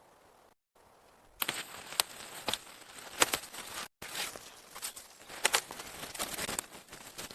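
Rustling and crackling of dry plant material, twigs, leaves or bark, being handled or stepped on, with a string of sharp snaps after the first second and a half.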